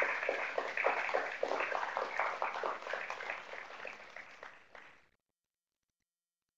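Audience applauding, a dense patter of many hands clapping that thins a little toward the end and then cuts off abruptly about five seconds in.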